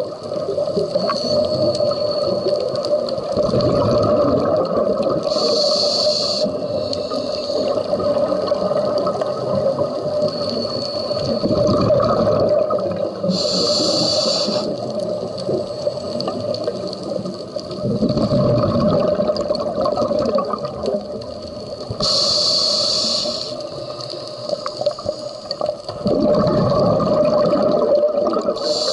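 Scuba diver breathing through a regulator underwater: a hissing inhale about every eight seconds, three times, each followed by a low, bubbling exhale, over a steady hum.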